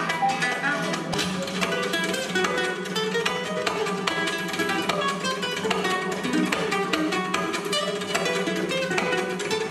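Two nylon-string acoustic guitars playing a piece together, a continuous run of quick plucked notes.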